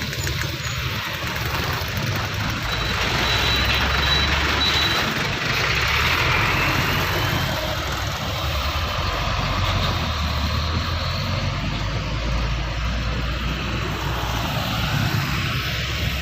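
Heavy diesel road vehicles passing close by, engine rumble and tyre noise swelling a few seconds in and easing again.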